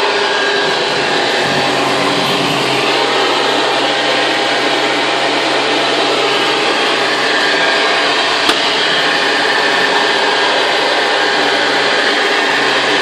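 Vintage Hoover Convertible model 719 upright vacuum cleaner running steadily, with a single sharp click about eight seconds in.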